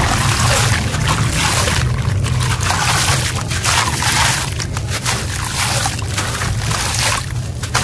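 Wet, gritty cement crumbs and grains crumbled by hand and pouring back into a tub of water, a gritty trickle and splash that swells and fades every second or so. A steady low hum runs underneath.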